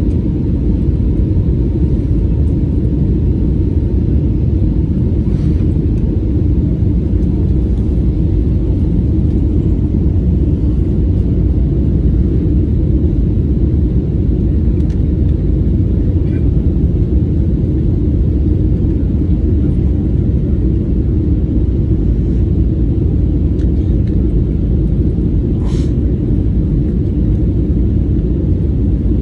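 Steady low rumble inside a jet airliner's cabin on descent: engine and airflow noise, with a couple of faint clicks.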